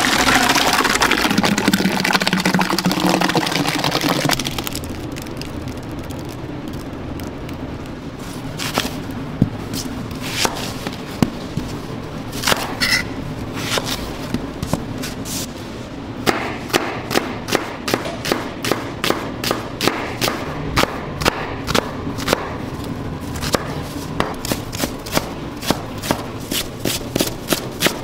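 A thick white puree gushing out of a stainless-steel mixer into a metal tub for the first few seconds. Then a kitchen knife cutting and chopping an onion on a cutting board: scattered cuts at first, then from about halfway a steady run of knife strokes, two to three a second, over a steady machine hum.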